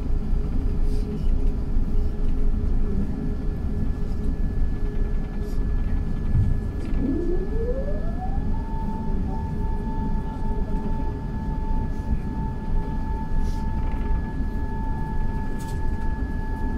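Steady low cabin rumble of an Airbus A380 slowing on the runway after touchdown. About six seconds in, a whine rises in pitch over two seconds, then holds at one steady pitch.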